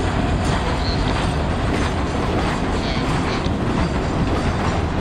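Empty coal hopper cars of a passing freight train rolling by on the rails: a steady rumble with repeated clicks and knocks from the wheels.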